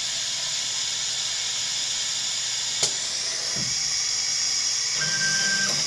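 Beahm Designs Model 410A thermal lamination system running with a steady hiss of air. A sharp click comes about three seconds in, and a short steady motor tone sounds near the end as the thermal nozzle moves back to its home position.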